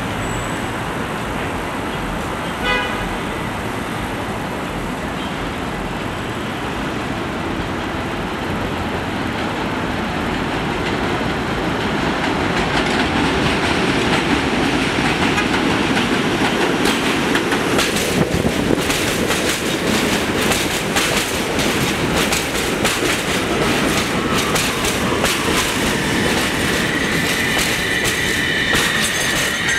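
An R32 subway train approaching on an elevated track, its rumble growing louder, with a brief sharp sound about three seconds in. As the cars run past, the wheels clatter over the rail joints, and a high brake squeal begins near the end as the train slows into the station.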